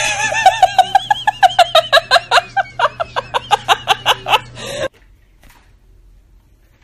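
A person giggling: a rapid, high-pitched run of short laughs, about six a second, that cuts off suddenly after about five seconds.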